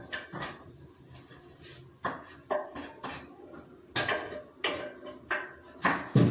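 Wooden chopping board knocking and scraping against a frying pan as chopped onions are tipped into it, with a knife tapping on a second board: about eight separate sharp knocks and clatters.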